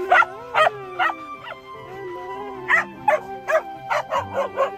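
Dogs barking in a pack: about a dozen short, sharp barks, a few in the first second and then coming faster in the second half, over background music.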